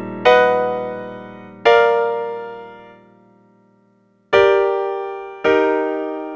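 Piano chords, each struck once and left to ring and fade. Two come in the first two seconds and die away to silence; two more follow near the end, about a second apart.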